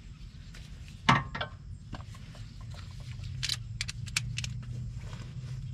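Metal hand tools clinking: a ratchet with socket and extension being handled and worked on a bolt, in scattered light metallic clicks, over a low steady hum that grows a little louder partway through.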